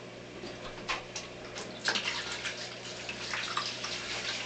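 Water splashing and trickling from an aquarium siphon hose draining tank water into a bucket, in irregular splashes that grow busier after about two seconds.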